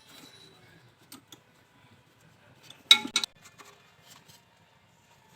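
Metal tools and parts clinking and clicking as they are handled, with a sharp double clank about three seconds in.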